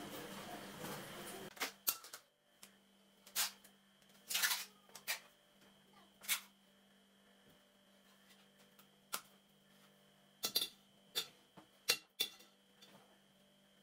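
A kitchen tap runs water into a stainless-steel sink for about the first second and a half. It stops, and a scattering of short clicks and knocks follows as a knife cuts butter from a block into a glass bowl, over a faint steady hum.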